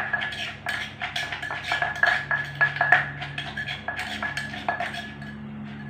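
Wooden pestle pounding som tam in a clay mortar, with a metal spoon in the mortar clinking against it: sharp, ringing knocks about three a second.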